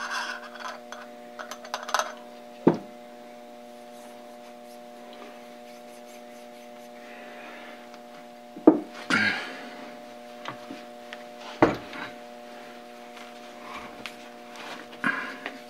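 Steel parts of a Brown & Sharpe dividing head being fitted together by hand: three sharp metal knocks a few seconds apart, with brief scraping and rubbing of parts between them, over a steady hum.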